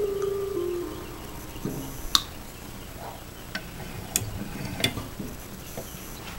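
Sharp metal clicks and taps, about six of them at irregular spacing and the loudest about two seconds in, from a brass shotgun shell hull and a wooden-handled punch being worked in a bench-mounted shotshell reloading press. The last note of background music dies away in the first second.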